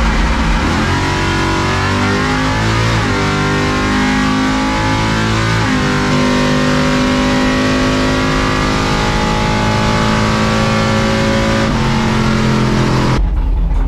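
700 hp C10 drag truck's engine at full throttle on a drag-strip pass, heard from inside the cab. The pitch climbs and drops twice as it shifts gears, then holds high before cutting off abruptly near the end.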